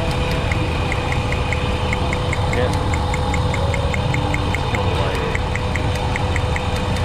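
Dodge Ram pickup's V8 idling, with a light, regular ticking of about four to five snaps a second, a few skipped. The snaps are spark arcing out through the top of an ignition coil boot, the sign of a coil leaking voltage and a cause of the misfire.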